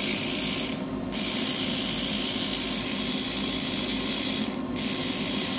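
A 775 ball-bearing DC motor, the 'for fan' version, running unloaded on 12 V with a steady high whirr. The whirr cuts out briefly twice, about a second in and near the end.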